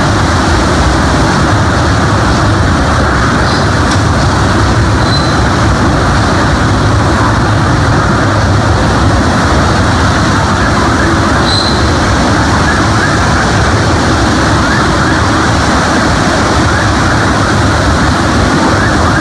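Typhoon-force wind and driving rain: a loud, steady rush with a heavy low rumble, and a couple of short high whistles.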